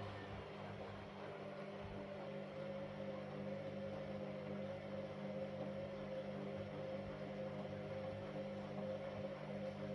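Washing machine running during its wash cycle, its motor and drum turning with a steady hum.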